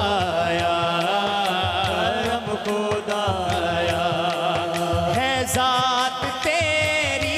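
Devotional hamd music: a melody with wavering, gliding ornaments over a steady low drum beat.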